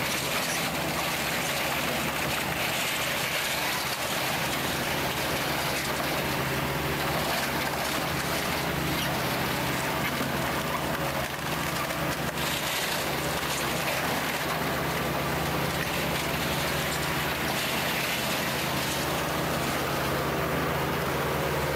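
Engine of a tractor-loader backhoe running at a steady drone.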